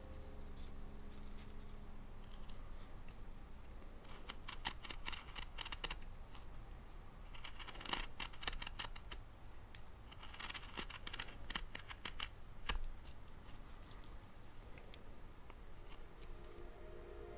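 Japanese carving knife (kogatana) slicing into a block of paulownia wood: three runs of quick, crisp cutting strokes, with scattered single clicks between them.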